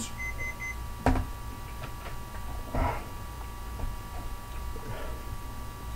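Digital stopwatch alarm beeping in rapid short pulses, the signal that the 5-minute time limit is up; it stops under a second in. Then a single sharp knock and a few faint handling noises over a steady electrical hum.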